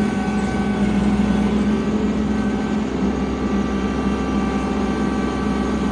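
Tractor engine running steadily under load, driving a rotary cutter (bush hog) through its PTO at about 576 rpm, a little above the standard 540. The engine's pitch holds even.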